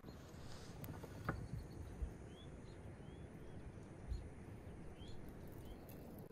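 A small bird calling a string of short chirps, about one a second from about two seconds in, over faint wind rumble and a few soft knocks.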